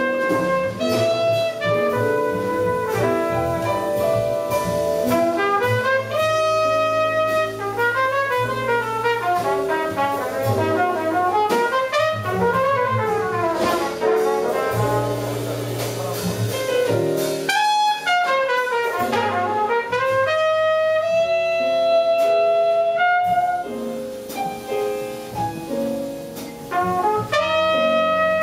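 Live jazz quintet of trumpet, saxophone, piano, bass and drums playing, with horn melody lines over piano and bass; the playing grows quieter for a few seconds near the end.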